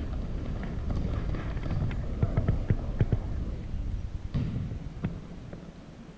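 Players running on a court and a basketball bouncing: a string of sharp knocks, thickest about two to three seconds in, over a low rumble that fades near the end.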